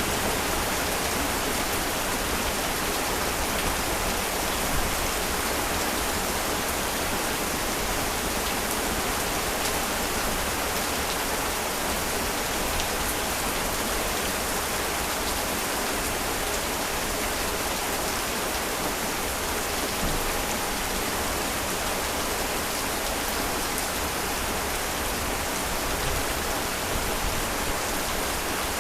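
Heavy rain falling steadily: a dense, even hiss with faint ticks of individual drops.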